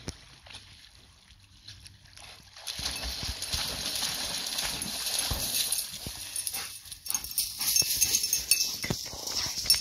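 A search-and-rescue dog swimming and splashing through shallow swamp water, starting about three seconds in and going on as it comes ashore.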